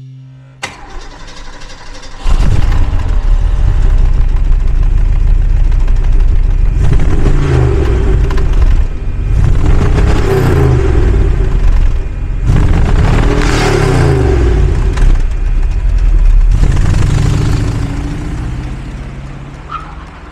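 A 1963 Lincoln Continental's 430 cubic-inch V8 starts about two seconds in and settles into a steady run. It is then revved several times, rising and falling in pitch, before fading out near the end.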